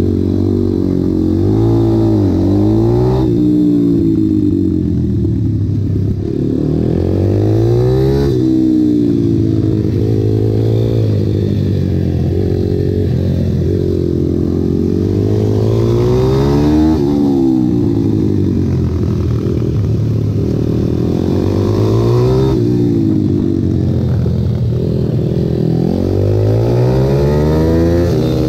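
Pit bike's small single-cylinder engine ridden hard on a track, its revs climbing and dropping again and again as it shifts gear and slows into corners.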